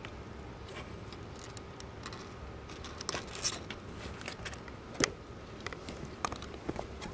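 Scattered light rustles and small clicks as kittens paw and nuzzle about close to the camera, with a sharper tap about five seconds in.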